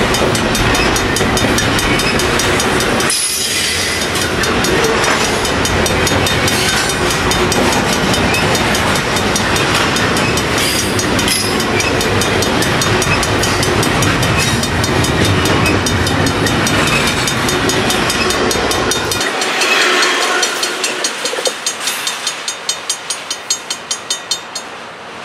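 Double-stack intermodal container cars of a freight train rolling past close by: a steady rumble and rattle of steel wheels on rail. Near the end the deep rumble drops away and evenly spaced wheel clicks, about three a second, take over and fade as the last cars go by.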